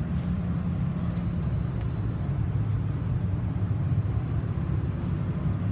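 Steady low rumble of an engine idling, with a faint hum and no change in pitch.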